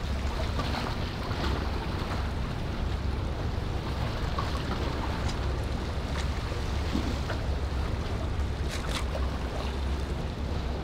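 Wind buffeting the microphone over open water: a steady low rumble under an even hiss, with a few faint clicks near the end.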